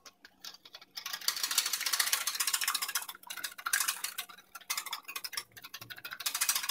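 Wire whisk beating egg yolk into frothed egg white in a glass bowl, the wires clicking fast and evenly against the glass. The ticking starts about a second in and breaks off briefly a couple of times.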